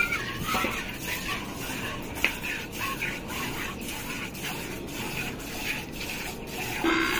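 Cow being milked by hand: jets of milk squirting into a small steel bowl in an even rhythm of about three squirts a second, as two hands alternate on the teats.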